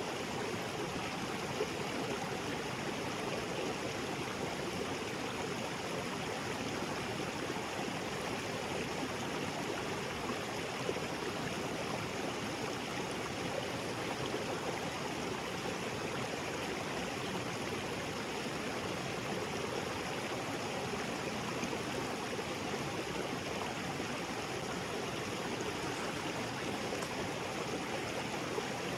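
Small waterfall on a jungle creek: a steady, even rush of falling and flowing water.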